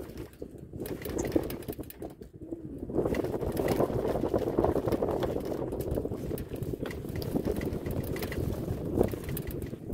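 Wind buffeting the phone's microphone, a rough low rumble that grows stronger about three seconds in.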